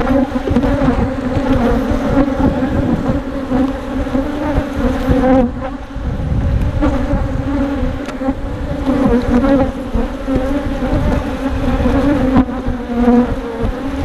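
Honey bees buzzing in a loud, steady, wavering hum around a hive opened for inspection, over a low rumble.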